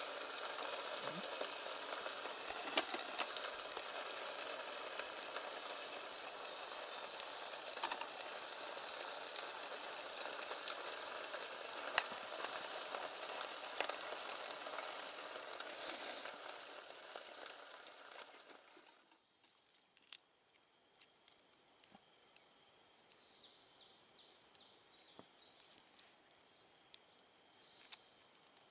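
SOTO gas-cartridge camp stove hissing steadily under a covered square aluminium cooker, dying away over a few seconds past the middle as the flame goes out. Afterwards a few light clicks and a short run of faint high chirps.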